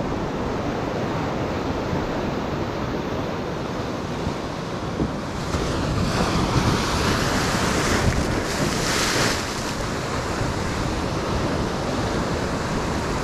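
Ocean surf breaking on a beach, with wind buffeting the microphone. A wave crashes in a louder rush from about five and a half to nine and a half seconds in.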